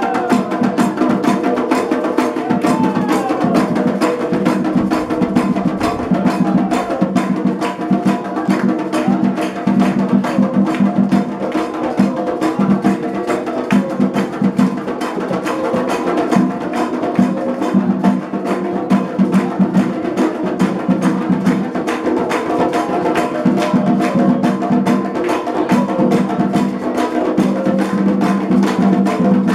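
Candomblé ritual drumming: atabaque hand drums playing a fast, continuous rhythm with a sharp, wood-block-like repeating part, under a chorus of chanting voices.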